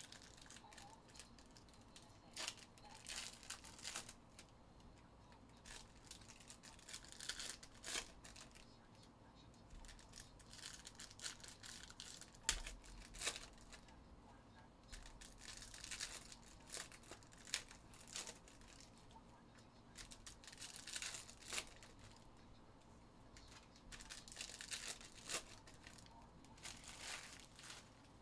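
Trading-card pack wrappers being torn open and crinkled, with cards flipped and tapped into stacks: repeated short rustling bursts.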